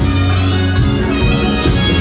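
Live band music played loud through a PA sound system during a sound check, with a steady, sustained bass note under a melodic lead instrument.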